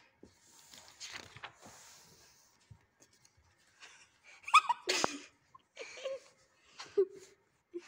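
Paper pages and a plastic book cover rustling as a textbook page is turned, then about halfway through a short, loud burst of a person's voice without words, followed by a few softer vocal sounds.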